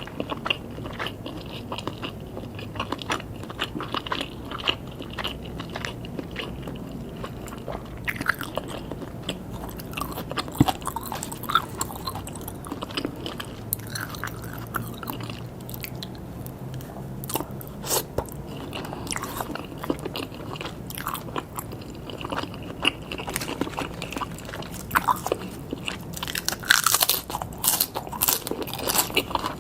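Close-up eating sounds: biting and chewing grilled pork skewers, with continual irregular small clicks and crunches, busiest near the end.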